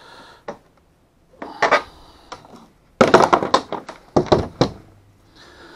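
Metal tools and mounting hardware handled and set down on a plastic kayak deck: scattered clinks and knocks, then a dense clatter about three seconds in that lasts over a second.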